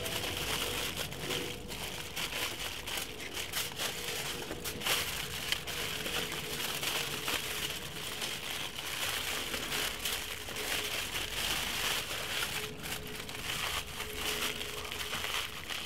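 Aluminium foil crinkling and crumpling in many quick, irregular rustles as it is folded and pressed tight around a fish into a sealed parcel.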